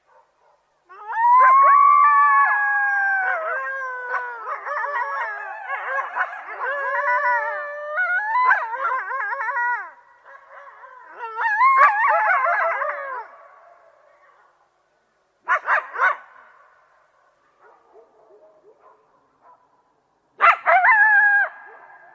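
A pack of coyotes howling together, with many wavering howls overlapping and rising and falling in pitch, broken by yips. The chorus breaks off at about ten seconds. It comes back in shorter bursts: a few sharp barks in the middle and a final burst of howls and yips near the end.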